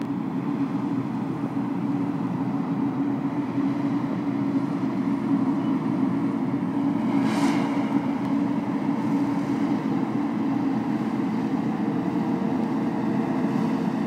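Claas Lexion 660 combine harvester running steadily while harvesting grain: an even drone of its engine and threshing machinery, with a brief hiss about seven and a half seconds in.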